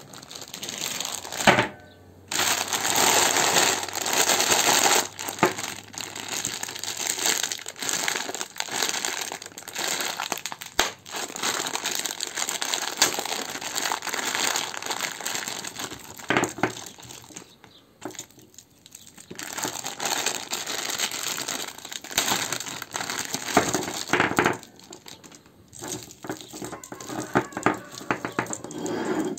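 Plastic candy bags crinkling as they are handled and torn open, with wrapped lollipops clattering and clicking onto a hard tabletop. The crinkling comes in long stretches broken by short pauses, with a few sharp clicks.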